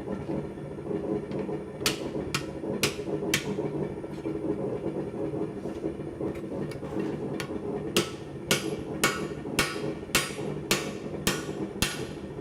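Hand hammer striking hot steel on an anvil while folding an axe blank over: four strikes about two seconds in, then a steadier run at about two blows a second near the end, each ringing briefly. A steady low rushing drone runs underneath.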